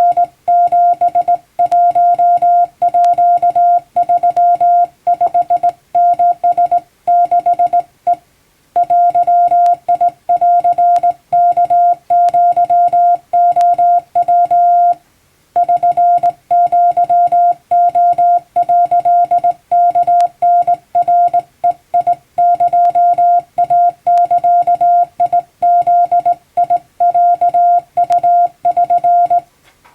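Japanese Wabun Morse code sent by hand on a telegraph key: a single steady beep keyed on and off in dots and dashes, with two short pauses between groups. It stops just before the end.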